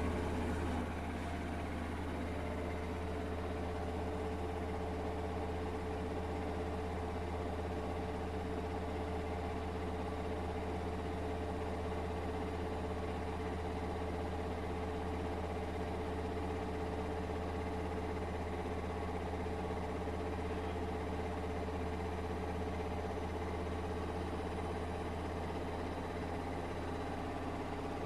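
Household appliance motor running with a steady low hum and a constant mid-pitched tone, unchanging throughout.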